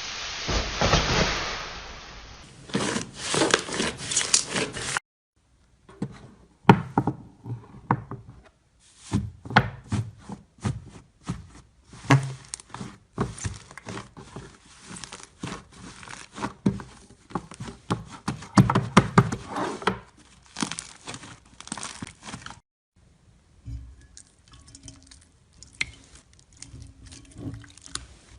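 Hands squeezing, poking and stretching slime, a quick run of sticky clicks, pops and crackles. Several short clips are cut together, with brief gaps near the five-second mark and again later.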